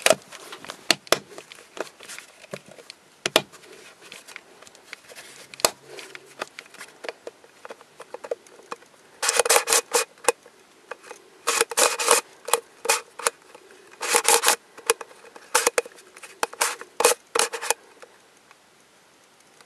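Plastic pieces of a Twist Ball puzzle clicking: scattered single sharp clicks as the ball is pressed together, then from about halfway through, several short bursts of rapid clicking as its sections are twisted.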